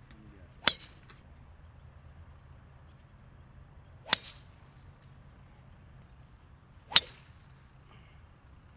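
Three golf tee shots, one after another: each a single sharp club-on-ball strike with a brief ring, about three and a half seconds and then three seconds apart.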